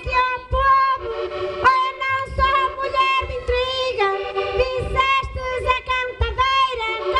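Live folk band music with amplified melody notes held steady over a regular drum beat.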